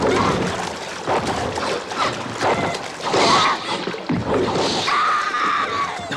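Water splashing and churning as a woman thrashes in it, with her cries breaking through a few times, the longest a held one about five seconds in.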